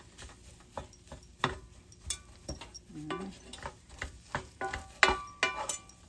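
Two wooden spatulas stirring and tossing fried rice in a nonstick frying pan, with irregular knocks and scrapes of wood against the pan.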